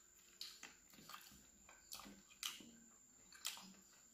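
Faint close-up chewing of a mouthful of chicken masala, with a handful of short, wet mouth clicks spread through it.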